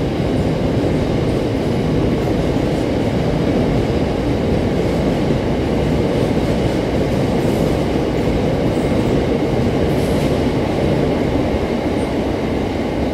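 Freight box wagons rolling past on steel wheels, a steady, unbroken rumble of wheels on rail.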